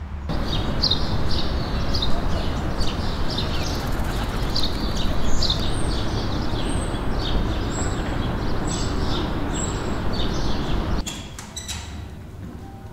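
Many short bird chirps over a dense, steady background noise, like an outdoor ambience. The background noise cuts off abruptly about eleven seconds in, leaving a few faint clicks.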